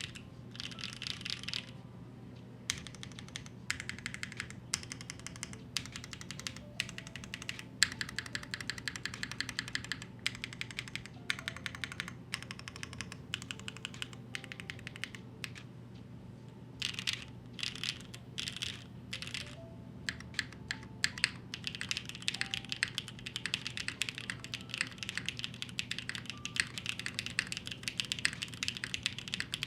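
Typing on a Neo75 Cu mechanical keyboard fitted with BCP linear switches: fast runs of key strikes and bottom-outs in bursts of a second or two, broken by short pauses.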